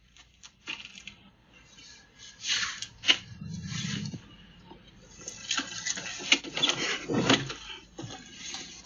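Irregular knocks, clunks and rustling, with one sharp knock about three seconds in.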